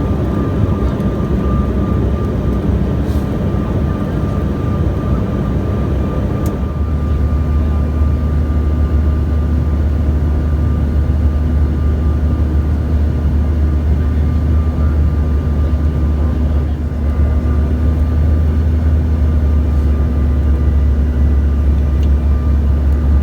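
Cabin noise of a CRJ-550 regional jet in flight on approach: a steady rumble of the engines and airflow with a faint whine. About six seconds in there is a faint click, and a low drone steps up and holds steady from then on.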